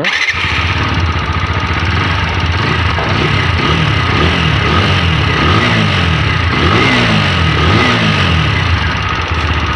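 TVS Apache 160 4V BS6 single-cylinder engine starting and running, revved up and down several times. A mechanical noise from the cylinder head is still there after a tappet adjustment, which the mechanic puts down to a broken rocker-arm bearing.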